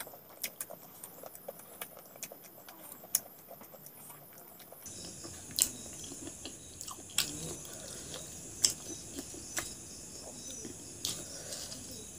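Person eating rice by hand: chewing and mouth smacks with scattered sharp clicks, and fingers working the rice on the plate. Crickets chirp steadily in the background.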